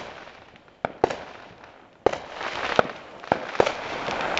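Backyard fireworks going off close by: several sharp bangs at uneven intervals, with a hissing rush between them from about two seconds in.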